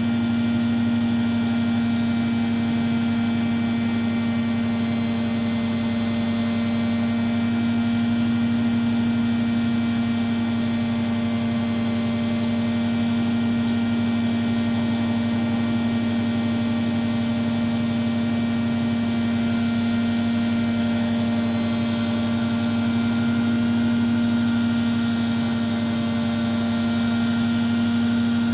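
Hoover Softwave Autowasher A0113 washing machine in its 1100 rpm final spin, holding a steady top speed: a constant motor whine and hum with no change in pitch.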